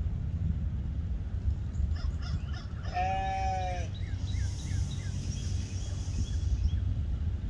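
Ewe bleating once, a call of about a second, over a steady low wind rumble, with a few faint bird chirps just after.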